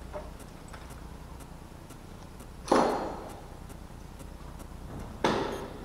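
Two sharp clanks about two and a half seconds apart, each dying away within half a second.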